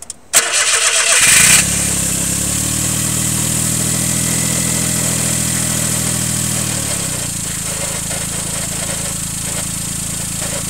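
Daihatsu EF-DET 660 cc turbocharged three-cylinder engine started from cold: a second of starter cranking and catching, then cold idle with a steady droning hum that fades out about seven seconds in. It is the abnormal noise the owner hears only until the engine warms up, with its cause unknown.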